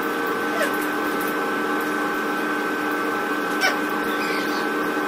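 Steady, even mechanical hum of a running household appliance, with two faint, brief squeaks falling in pitch about half a second and three and a half seconds in.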